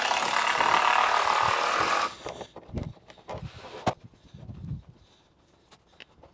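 Power drill driving a screw into wooden 2x6 form boards for about two seconds, then stopping, followed by a few knocks and thuds of boards being handled.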